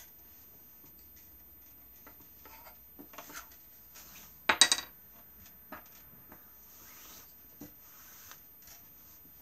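Strips of cotton sheet rustling and rubbing as they are pulled through the stitches of a toothbrush rag rug and pressed down on a tabletop. About halfway through comes a brief clatter of sharp clicks, something hard knocking.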